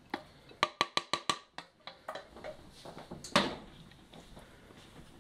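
Rice being knocked out of a stainless steel saucepan onto a ceramic plate: a quick run of about six sharp metallic taps in the first second and a half, then one louder knock a little over three seconds in.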